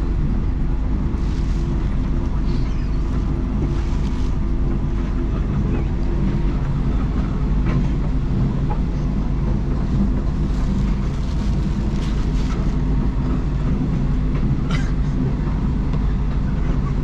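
Steady low rumble of a moving sleeper train heard from inside the carriage, with a few faint clicks and rattles.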